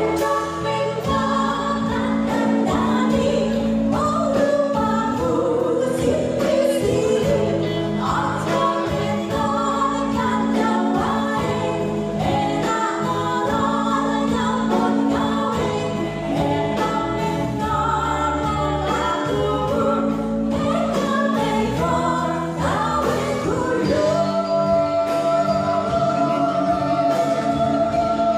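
Live band music in modern gamelan style, a female vocalist singing a Javanese song over electric guitars, drums and bass. The singer holds one long note near the end.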